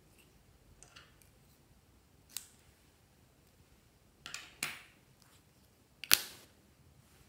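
A few sharp clicks and taps from a gold metal lipstick tube being handled, spaced a second or more apart, with a close pair about four and a half seconds in and the loudest click about six seconds in, as the cap goes back on the tube.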